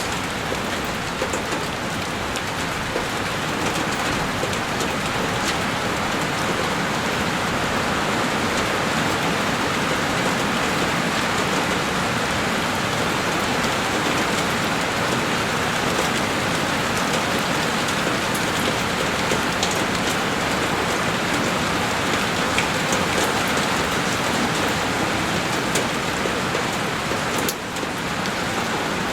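Heavy rain beating on a window pane: a dense, steady hiss of rain with fine ticks of individual drops, apart from a brief dip in loudness near the end.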